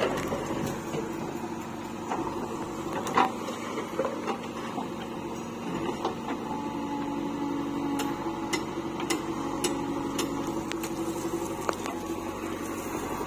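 JCB 3DX backhoe loader's diesel engine running under load while the backhoe arm swings and digs, with a steady hydraulic whine that strengthens about six seconds in as the bucket pulls through the soil. Occasional sharp clanks from the arm and bucket.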